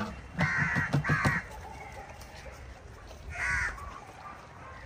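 A crow cawing three times: two harsh caws close together in the first second and a half, and another about three and a half seconds in.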